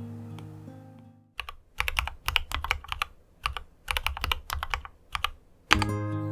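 Typing on a keyboard: irregular runs of sharp key clicks for about four seconds, with short pauses between bursts. Soft guitar music fades out at the start and comes back near the end.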